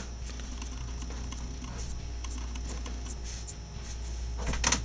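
Faint, scattered light clicks and taps over a steady low hum.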